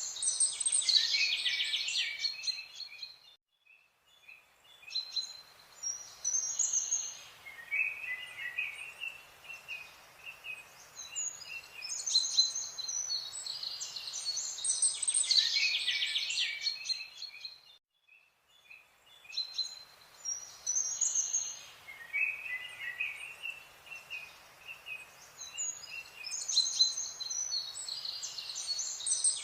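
Birdsong: many quick high chirps and trills from several birds. The same passage repeats about every fourteen or fifteen seconds, as a loop, with a brief drop-out about four seconds in and again about eighteen seconds in.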